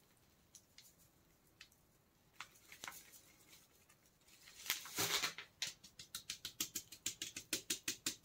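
Metal mesh sieve being tapped and shaken to sift powdered sugar, a quick even patter of about four taps a second starting a little past halfway. Before it come a few scattered faint clicks and a brief rustle as sugar is poured from its bag into the sieve.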